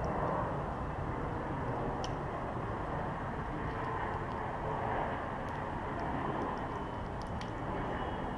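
Steady rumbling background noise, with a few faint light clicks scattered through it.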